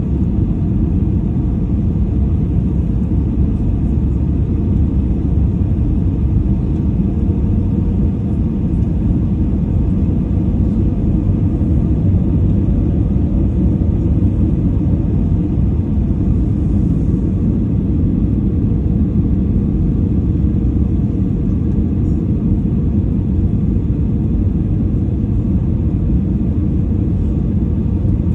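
Steady low rumble of jet airliner cabin noise, engines and airflow, heard from inside the cabin during the descent to landing.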